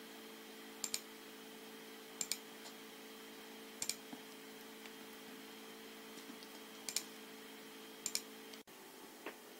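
Computer mouse button clicks: about five quick pairs of ticks, a second or more apart, as sketch lines are clicked away one by one with a CAD trim tool. Under them runs a steady low hum that cuts out near the end.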